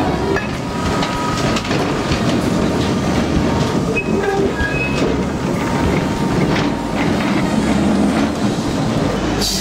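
1911 Hurst Nelson open vintage tram running along street track close by, its steel wheels rumbling and clicking over the rails, with a couple of short high squeaks about four and five seconds in.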